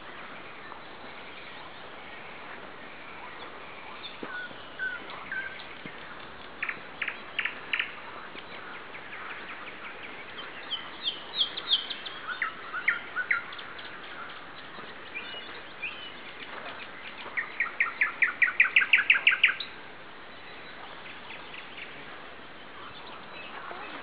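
Nightingale singing: phrases of short repeated clear notes with pauses between them, then about three quarters of the way in a loud fast run of about a dozen strokes that stops sharply.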